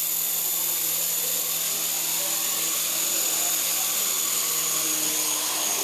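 Syma S107G micro remote-control helicopter in flight, its coaxial rotors and small electric motors giving a steady high whine.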